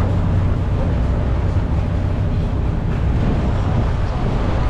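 Boat under way: a steady low engine drone mixed with the rush of churning water and wind.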